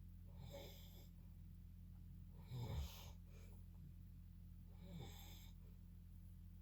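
A sleeping person snoring: three breaths about two and a half seconds apart. The middle one, about two and a half seconds in, is a short, louder snore with a low buzz, and the other two are softer, with a faint high whistle.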